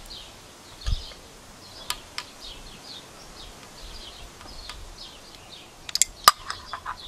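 Birds chirping over and over in the background, with sharp metal clicks and clinks of a hand ratchet and socket working the timing-chain guide bolts. A dull knock comes about a second in, and a quick cluster of louder clicks comes near the end.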